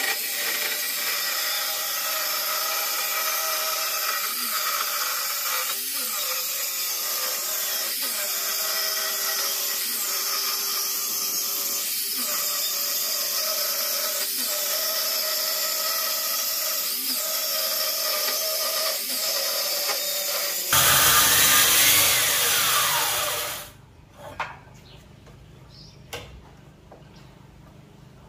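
Handheld circular saw cutting a board lengthwise, its motor running steadily with small regular dips under load. About 21 seconds in it gets louder for a few seconds, then its pitch falls as the saw is switched off and spins down, followed by a couple of light knocks.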